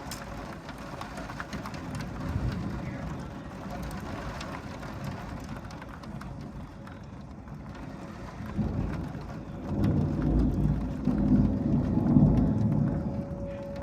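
Thunder rumbling over steady rain, growing louder about eight seconds in and peaking near the end. A distant tornado-warning siren's steady tone fades in and out beneath it.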